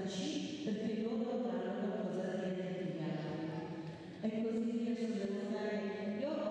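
A group of voices singing a song together in unison, with long held notes that step up and down between phrases, heard as playback of the projected video through the hall's speakers.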